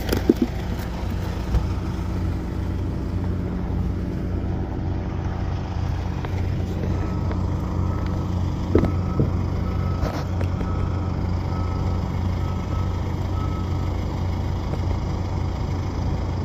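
An engine idling with a steady low hum. From about seven seconds in, a run of about eight evenly spaced electronic beeps at one pitch, roughly one a second, sounds for some six seconds, in the pattern of a reversing alarm.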